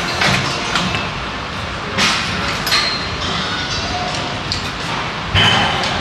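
Glute kickback machine's weight stack clanking several times during a set, the loudest clank about five seconds in, over a steady hum of gym noise.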